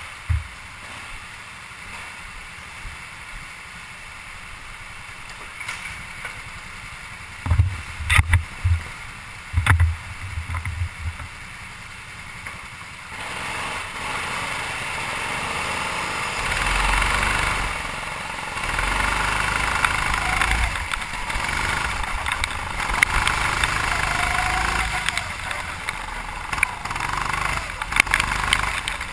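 A 270 cc single-cylinder go-kart engine in heavy rain: over a steady hiss of rain, a few short loud bursts come about eight to ten seconds in, then about halfway the engine runs steadily and the kart drives off, its running mixed with the hiss of wet spray.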